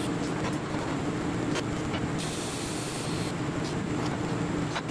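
TIG welding arc on a stainless steel exhaust pipe and V-band flange: a steady buzzing hiss with a low hum, as the hole beside the weld is filled in.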